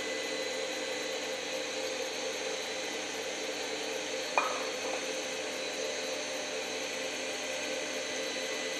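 Electric stand mixer running steadily at high speed, whipping egg yolks in its steel bowl for a hollandaise. A single short clink about four seconds in.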